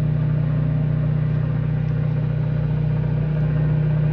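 Microwave oven running with a steady low hum while it heats a bowl of white school glue.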